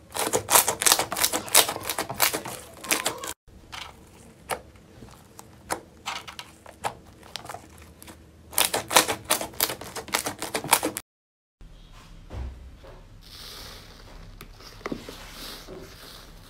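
Slime being squeezed and pressed by hand, giving quick runs of crisp clicks and pops, densest near the start and again towards the end. After a brief cut, a softer crinkling texture follows.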